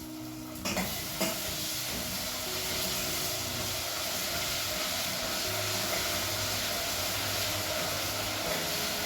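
Tomato paste frying in hot oil with garlic and ginger in a cooking pot: a steady sizzle that starts suddenly less than a second in, with a couple of knocks of the spoon as it begins.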